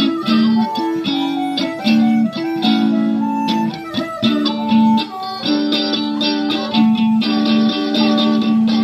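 Live blues on an electric guitar played through an amplifier, a riff of held notes that change in steps.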